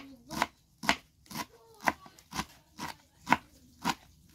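Kitchen knife chopping curly lettuce on a wooden cutting board, in a steady rhythm of about two cuts a second.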